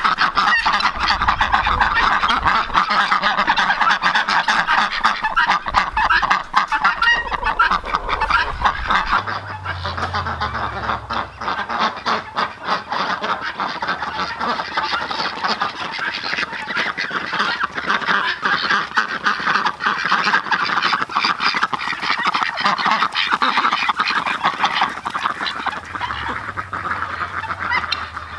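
A mixed flock of farmyard poultry, Pekin ducks among them, calling nonstop in a dense, overlapping chorus.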